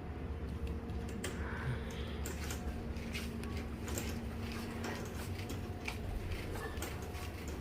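Grocery store background: a steady low hum with many scattered clicks and light knocks.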